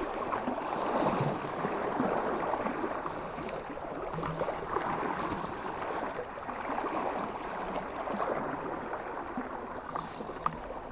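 A fast river running high, its current rushing and gurgling steadily, with a couple of faint clicks near the end.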